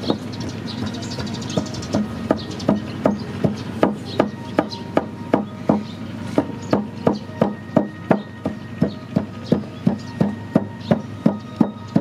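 Wooden pestle pounding in a mortar, grinding ingredients for a dipping sauce: a steady run of dull knocks, about two and a half a second, that settles into rhythm about two seconds in.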